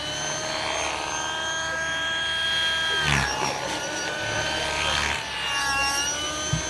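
Small propeller-driven aircraft's engine whining as it flies aerobatics overhead, its pitch dropping sharply as it passes about three seconds in and again near six seconds. A brief knock just before the end.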